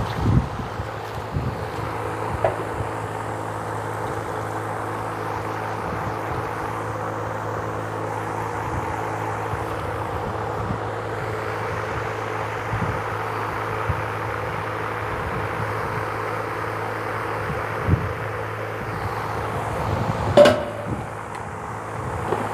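Steady mechanical hum from a running motor, with a few short knocks, the loudest near the end.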